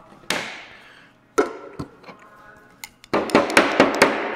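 Spreader scraping auto body filler out of a metal gallon can: a couple of knocks in the first half, then from about three seconds in quick repeated scrapes against the can, around four a second.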